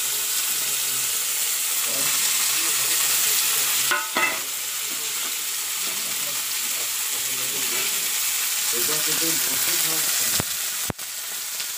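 Sliced raw bitter gourd sizzling loudly in hot oil in a kadai (wok), just added to the pan, with a steady hiss and a few sharp clicks about four seconds in and near the end.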